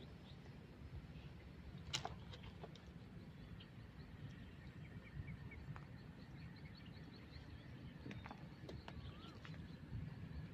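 Quiet outdoor ambience: a low steady rumble of background noise with faint, repeated high bird chirps, and a single sharp click about two seconds in.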